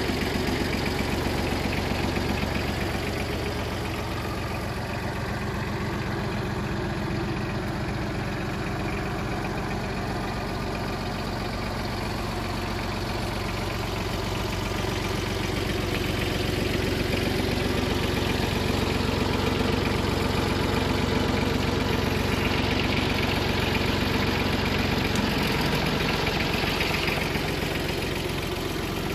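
Yanmar Ke-4 compact tractor's diesel engine idling steadily, a little louder in the second half, its tone shifting slightly near the end.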